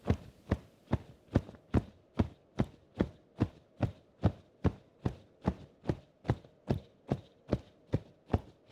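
A hand tapping rhythmically on the chest over acupressure points, a steady run of even taps about two and a half a second.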